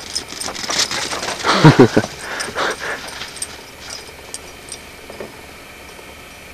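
A dog gives a short, pitched vocal sound that bends in pitch about one and a half seconds in, amid noisy rustling over the first three seconds. After that it is much quieter, with only a few faint ticks.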